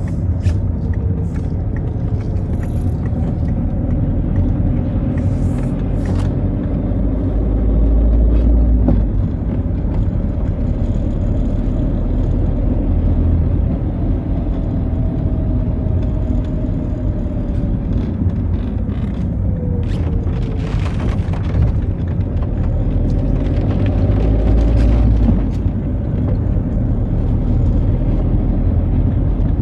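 Citroën Xsara being driven on wet roads in the rain: steady engine rumble and tyre noise, with engine tones slowly rising and falling as it speeds up and slows down. A deeper rumble swells twice, and there are a few light clicks.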